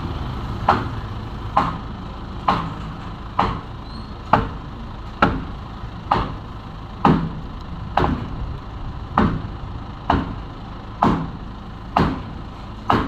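Hydraulic jack being pumped by hand at the truck's sunken wheel, a sharp metallic clack with each stroke, a little more than once a second, about fourteen strokes. The Ollin light truck's engine idles steadily underneath.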